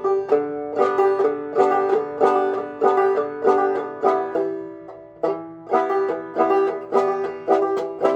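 Banjo played clawhammer style at a slow tempo: an even rhythm of struck and plucked notes, about two to three a second, with a short break about five seconds in.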